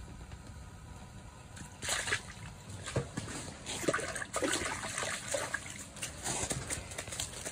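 A hooked bass splashing in the water of an ice-fishing hole as it is pulled up and lifted out by hand, with water splashing and dripping, beginning about two seconds in.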